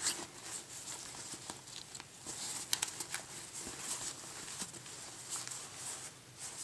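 Rustling and scraping of a quilted fabric carrying case handled by hands as headphones are fitted into it, with scattered small ticks and one sharper click a little before the middle.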